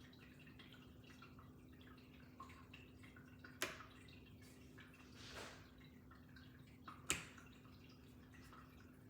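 Faint, steady hum of a 1998 Hunter 52-inch Medalist ceiling fan running, with two sharp clicks about three and a half seconds apart and a brief soft whoosh between them.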